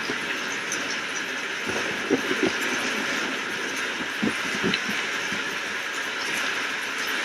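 Steady rain hiss, with a few short low knocks in two small clusters about two seconds and four and a half seconds in.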